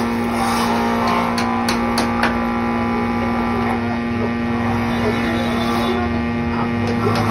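Electric motor of a woodworking machine running steadily with a constant hum, with a few sharp knocks between about one and two and a half seconds in.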